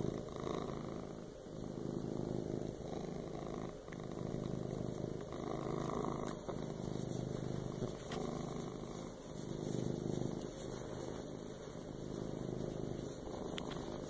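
Domestic tabby cat purring steadily while being scratched under the chin, the purr swelling and easing in a slow rhythm about every two seconds.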